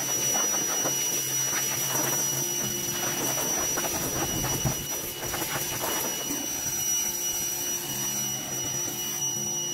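Greenworks pressure washer running steadily, its high-pressure spray hissing against a pickup truck's front wheel and fender, with a constant high motor whine.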